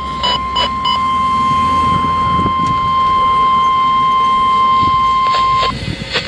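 NOAA Weather Radio warning alarm tone: a loud, steady single-pitch tone of about 1050 Hz that cuts off about five and a half seconds in, announcing the warning broadcast. Three short, higher beeps sound over it in the first second, and a few clicks follow after it stops.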